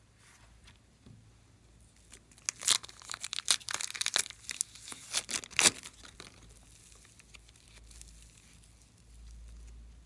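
Slime being squeezed and stretched by hand, giving a quick run of crackling pops and clicks for about three seconds, with quiet handling before and after.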